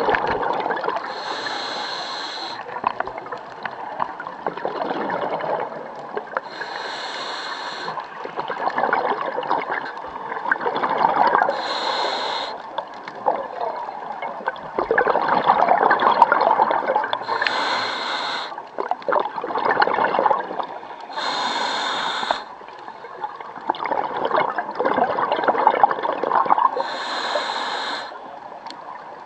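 Scuba diver breathing through a regulator underwater: six regular breaths about five seconds apart, each with a short bright hiss, and bubbling and gurgling of exhaled air in between.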